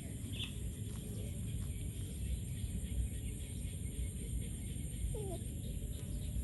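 A steady low rumble, with two brief animal calls: a short high chirp about half a second in and a falling whine about five seconds in.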